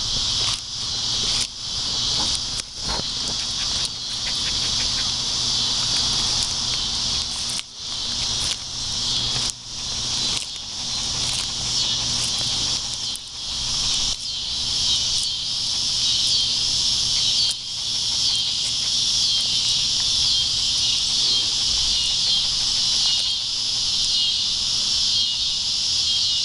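Steady, high-pitched chorus of insects such as crickets, running unbroken throughout, with a few brief clicks and short dips in level scattered through the first half.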